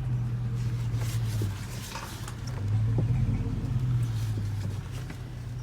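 Chevrolet Silverado pickup engine running with a steady low hum that dips briefly about two seconds in, then picks up again, with a few light knocks along the way.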